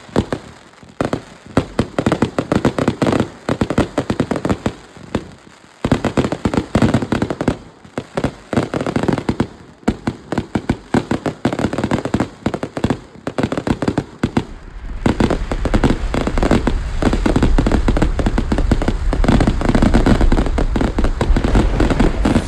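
A large firework going off: a long run of rapid bangs and crackles in several bursts with brief lulls between them, building to a dense, unbroken volley with deeper booms over the last several seconds.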